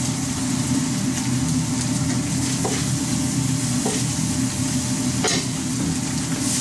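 Chopped tantuni meat sizzling in oil on a large shallow steel griddle pan as it is stirred and scraped with a spatula, with a few sharp metal taps. A steady low hum runs underneath.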